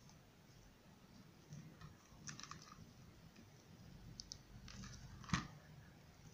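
Faint handling of a satin ribbon bow and a hot glue gun on a tabletop: soft rustles and small clicks, with one sharp knock about five seconds in.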